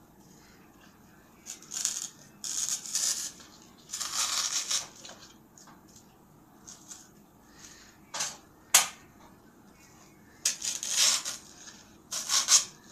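Paper flowers and leaves rustling and crinkling as they are handled and pushed into a pot, in irregular bursts, with one sharp click about two-thirds of the way through.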